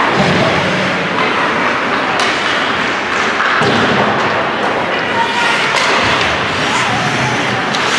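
Steady, loud din of a game in a large indoor hall, broken by repeated sharp thuds.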